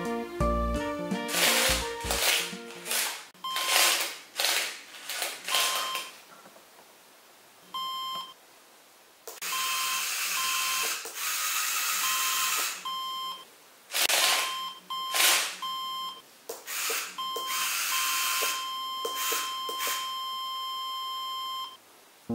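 Electronic buzzer on a Lego Technic mine-sweeping robot beeping at one steady high pitch. The beeps start short and spaced out, come closer together, and end in one long tone about three seconds long, signalling that the metal detector on the arm is closing in on a metal object. Bursts of whirring from the robot's small motors come in between the beeps.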